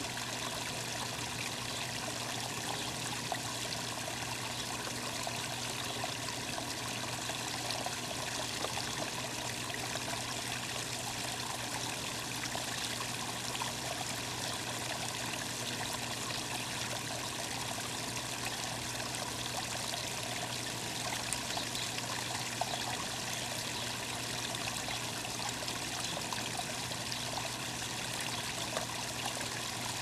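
Running water trickling steadily, with a faint steady low hum underneath.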